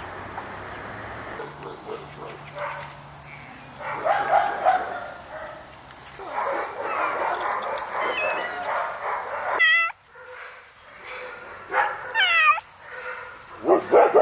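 Dogs barking in a jumble. In the second half come a few separate high yelping cries that bend in pitch.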